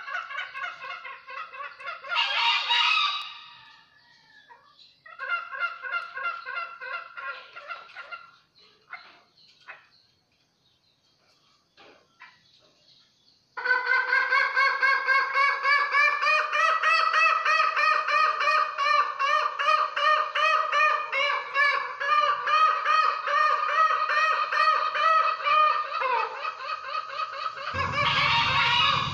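Fowl calling in fast, pulsing, pitched notes, in a couple of short runs, then a quiet stretch with a few faint clicks. About halfway through, a loud unbroken run of the pulsing calls starts abruptly and carries on.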